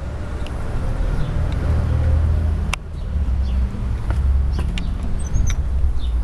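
Uneven low rumble of wind on the microphone and a handheld camera being moved about, with a few sharp knocks and faint bird chirps a little after five seconds in.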